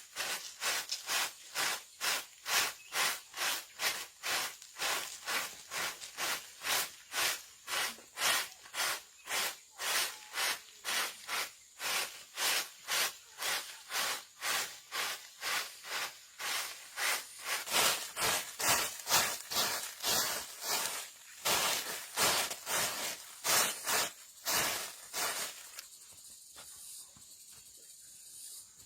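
Rhythmic back-and-forth scraping strokes, about two a second, each a short rush of noise. They stop about 26 seconds in, leaving faint outdoor background.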